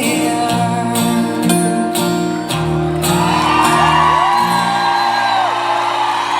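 Live band with guitar playing the final held chords of a song in a large hall; about halfway through, the concert audience starts cheering and whooping over the last notes.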